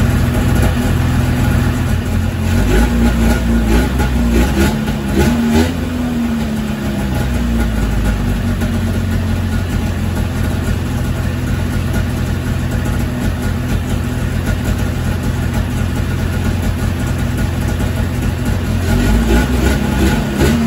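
Ski-Doo Formula Plus's Rotax 583 two-stroke twin running at a steady idle, revved up briefly a couple of seconds in and again near the end. The even idle shows the blocked low-speed jet in the Mikuni carburettor has been cleared.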